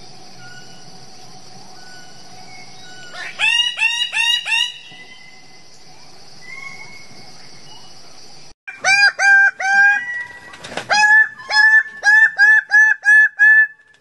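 Bird-of-paradise giving loud repeated calls, each falling in pitch. A quick run of about four comes around three and a half seconds in, then a longer series of about ten from about nine seconds on. A steady high-pitched hum runs under the first half.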